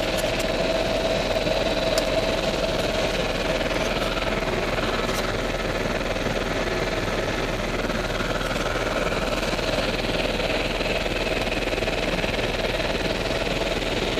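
Helicopter engine and rotor noise, a steady drone with a low hum, heard from inside the cabin in flight.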